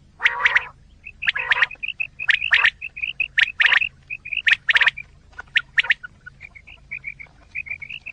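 Quail calling, used as a hunting lure: loud clusters of two or three sharp notes about once a second, with softer short chirps in between.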